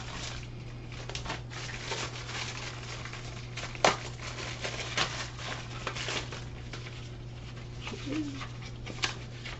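Plastic packaging rustling and crinkling as a packaged cutting board is handled and unwrapped, with one sharp click about four seconds in. A steady low hum runs underneath.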